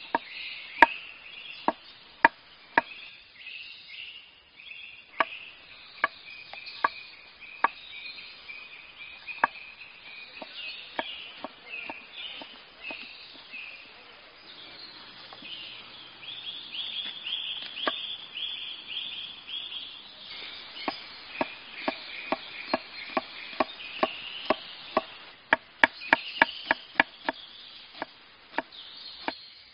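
Kitchen knife chopping ginger and onion on a wooden cutting board. The knocks come singly and irregularly at first, then in quick runs of rapid chopping in the second half. Steady chirping in the background.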